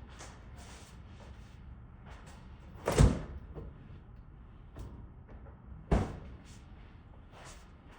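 Two door thuds, about three seconds apart, the first the louder, each a sharp knock with a short tail, with fainter light taps between them.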